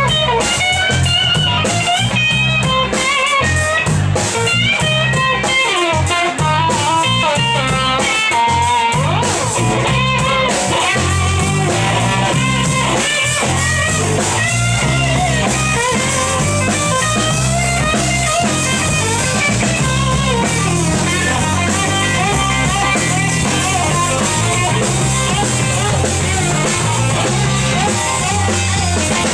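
Live rock band playing an instrumental stretch: electric guitar lead with bending, wavering notes over bass and drum kit.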